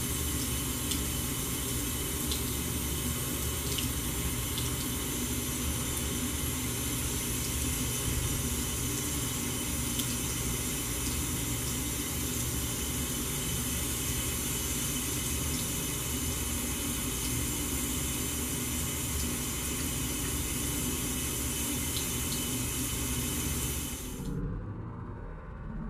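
Bathroom sink faucet running a thin stream of water into the basin, a steady splashing hiss. It stops abruptly near the end.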